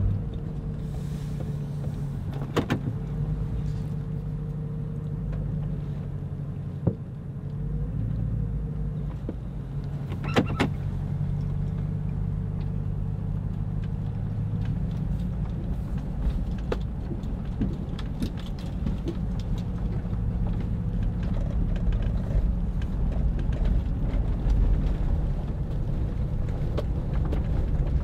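Pickup truck driving on a dirt track, heard from inside the cab: a steady low engine and road rumble with a faint steady hum, and a few sharp knocks from the tyres and cab, the clearest about two and a half and ten seconds in.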